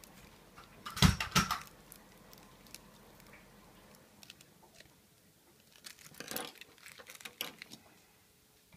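Small scissors snipping through a cheese slice still in its plastic film, with the film crinkling: a loud cluster of snips and crackles about a second in, and another, softer run of them from about six seconds in.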